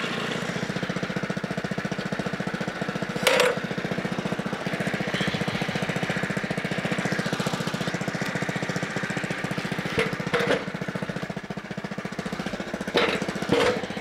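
Portable band sawmill's small engine running steadily with an even pulse. Short, louder bursts of noise break in about three seconds in, again around ten seconds in, and near the end.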